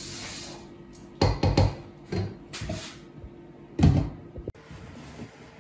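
A spoon clattering against a cooking pot a few times while food is stirred, then a louder clank near the end as the lid is set on the pot.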